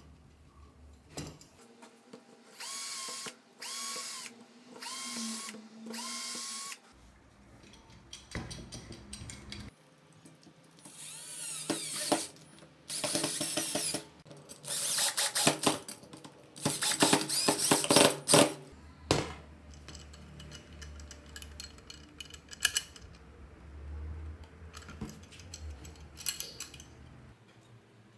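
A handheld power drill run in short bursts: four brief whirs a few seconds in, then several longer runs whose pitch rises and falls as the trigger is squeezed and released. Light clicks and knocks of handling between the runs.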